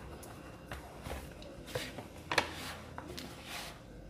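Hands kneading and squeezing soft yeast bread dough in a plastic bowl as more flour is worked in: irregular soft squishes and pats.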